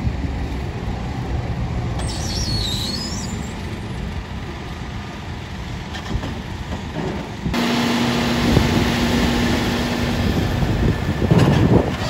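A JCB telescopic wheel loader's diesel engine running as it works, a steady rumble that jumps louder about halfway through. A steady whine follows for a couple of seconds, then clattering near the end.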